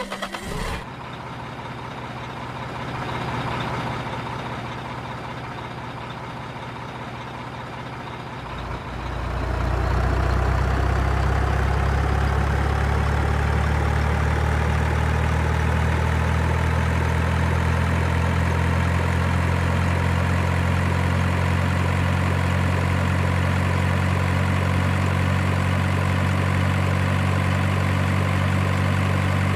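Engine idling steadily; about nine seconds in it becomes louder, a steady low hum that holds.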